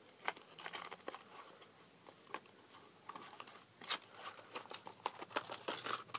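Small cardboard blind box being opened by hand: irregular faint crackles, crinkles and small snaps of cardboard and packaging, the sharpest about four seconds in.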